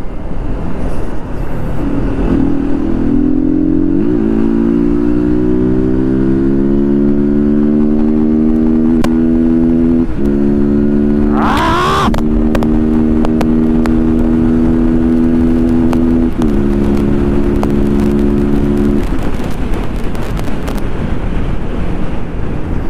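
Yamaha R15 single-cylinder sport bike engine pulling under throttle at road speed. Its note climbs steadily, drops in a step as it shifts up a gear, then holds steady, with wind and road noise underneath. A short higher tone sounds about halfway through, and the engine note drops out about three-quarters of the way in.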